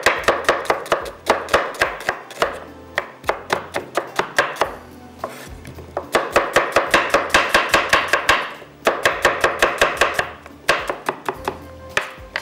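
Kitchen knife slicing an onion with quick, even strokes, about five a second, in several runs broken by short pauses.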